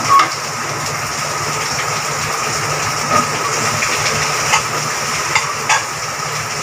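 Minced mutton sizzling as it fries with the masala in an aluminium pressure cooker, a steady hiss over a low hum. A spoon stirring it clicks and scrapes against the pot now and then.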